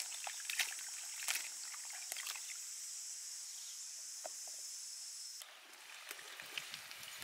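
Faint water dripping and light splashing as sliced mushrooms are rinsed by hand in a bowl of water and lifted out, with small scattered clicks. A steady high hiss sits underneath and stops suddenly about five seconds in.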